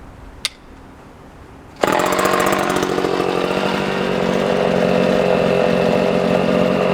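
Vintage Homelite 150 Automatic two-stroke chainsaw engine cutting in suddenly about two seconds in and running steadily, after a single faint click.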